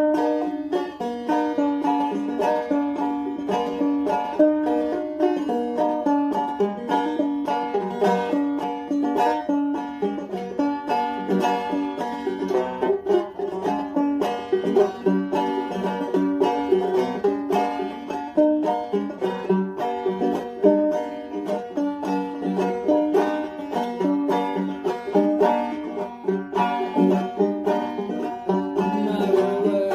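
Banjo being picked, a continuous run of quick plucked notes.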